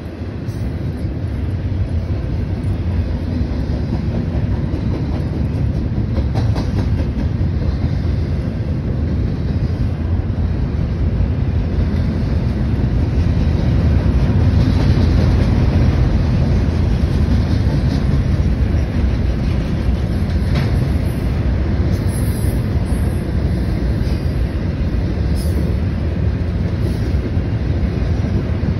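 Double-stack intermodal freight train cars rolling past: a steady, loud rumble of steel wheels on rail, with a few sharper clicks from the wheels.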